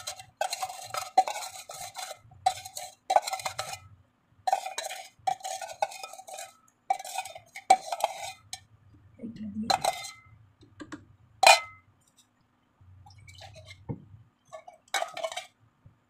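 Steel spoon scraping and stirring inside a stainless steel tumbler in about ten repeated strokes, the tumbler ringing with each one, as the last of the settled ice-cream mixture is scraped from its bottom. Then a few sharp single clinks of the spoon against metal.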